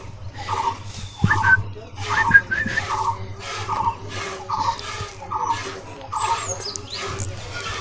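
Birds calling: one repeated call about twice a second, with a few brief higher chirps over it.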